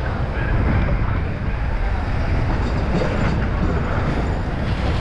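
Motorbike riding noise: engines and road noise under a steady rumble of wind on the microphone.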